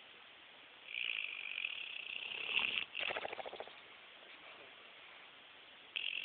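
Pit bull snoring in her sleep: a long, high, hissy breath about a second in, then a short fluttering snore, and another high hissy breath starting near the end.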